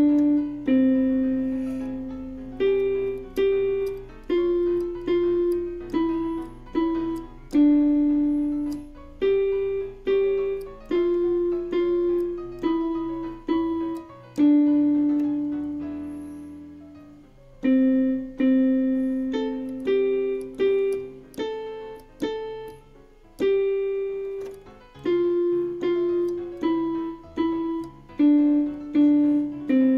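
Yamaha PSR-F51 portable keyboard played in its piano voice, one key at a time: a slow, simple melody of single notes, each fading after it is struck, with one longer held note about halfway through.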